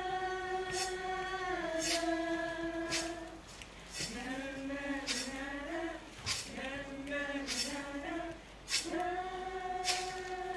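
Voices singing a slow melody in long held notes, with a sharp percussive beat about once a second.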